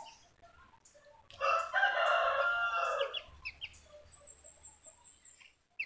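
A rooster crows once about a second in, a long call of nearly two seconds. Later comes a quick run of very high, thin chirps.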